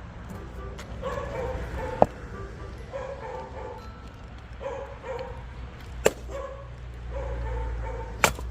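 A dog barking repeatedly in short yips, with three sharp cracks of an axe splitting firewood: about two seconds in, about six seconds in, and near the end.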